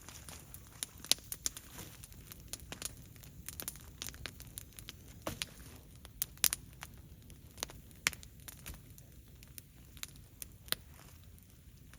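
Bonfire of fallen leaves and dry branches crackling, with irregular sharp pops of varying loudness, several a second.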